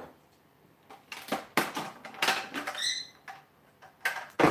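Dishes and utensils handled on a kitchen counter: a series of short knocks and clinks, with a brief high squeak about three seconds in.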